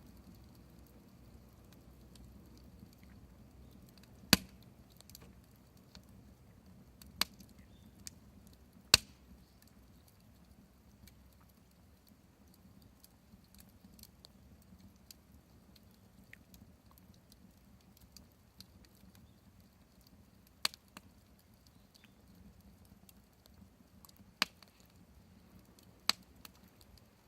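Open wood fire burning quietly, with occasional sharp pops of the wood snapping, about six of them at irregular intervals; the loudest come about 4 and 9 seconds in.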